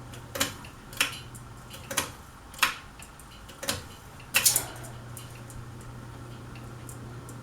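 Harbor Breeze Pulsar ceiling fan running with a steady low motor hum, while about six sharp, irregular clicks come during the first four and a half seconds and then stop.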